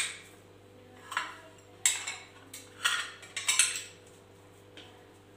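Kitchen utensils and dishware clinking and knocking: about six separate sharp knocks, roughly one a second, the first the loudest.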